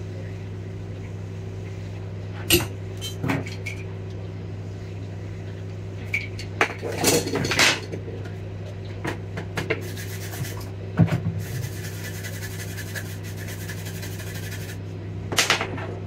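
Light rubbing, scraping and small taps of a tool brushing and working on a laptop motherboard, in short bursts, over a steady low electrical hum. A steady hiss runs for a few seconds past the middle.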